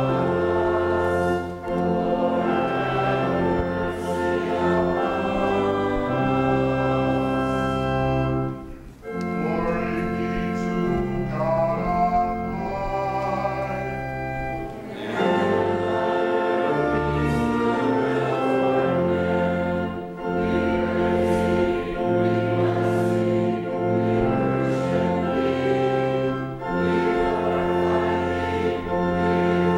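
Choral singing with organ accompaniment, in slow, long-held chords over low sustained bass notes, with a short break between phrases about nine seconds in.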